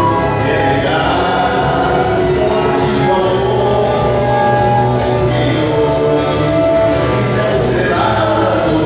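Live samba ensemble: several men singing together over cavaquinho, acoustic guitar, clarinet and a large hand drum.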